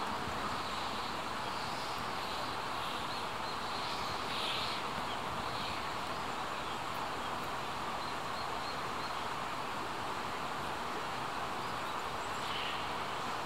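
Steady outdoor ambience: an even rushing hiss, with faint short high chirps now and then.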